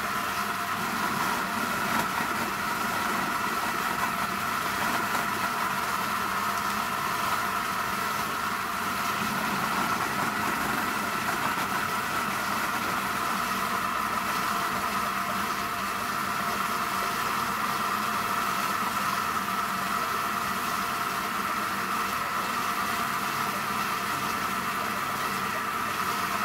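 Electric vegetable chopper's motor, rated about 400 watts, running steadily with a constant whine.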